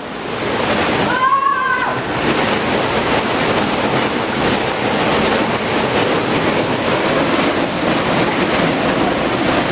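Steady rush of a small waterfall pouring into a plunge pool. About a second in, a brief high call from a person cuts through.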